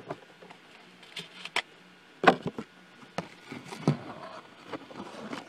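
Small parts and plastic polarizing film being handled on a tabletop: scattered light clicks and taps, the loudest about two seconds in, over a faint steady hum.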